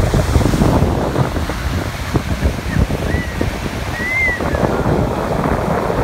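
Sea surf breaking and washing up the beach, with wind buffeting the microphone.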